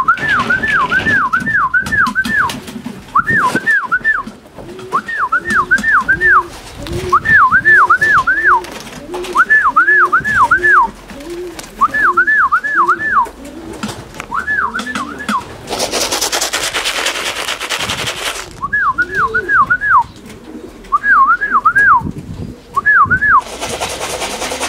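A person whistling to call racing pigeons into the loft: short rising-and-falling notes in quick groups of three to five, repeated over and over. Pigeons coo softly beneath, and a burst of rushing noise lasts about three seconds near the two-thirds mark.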